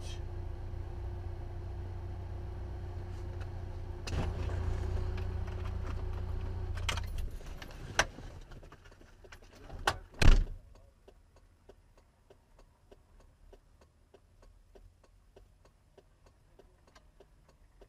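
Car interior sound: a steady low engine and road drone with a few sharp knocks, then a loud thump about ten seconds in. After that it goes much quieter, leaving only faint, evenly spaced ticking.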